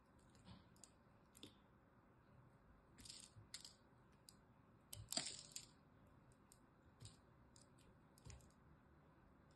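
A dry, crumbly bar of soap crunching and crackling as a blade is pushed into it and the block is pried apart by hand. The sound is a scattering of short, crisp crackles, loudest about five seconds in.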